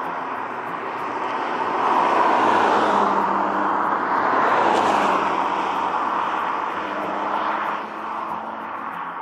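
Ford Puma ST with a 1.5-litre turbocharged petrol engine driving past: engine and tyre noise builds, peaks about halfway through as the car passes, then fades as it pulls away, dropping a step near the end.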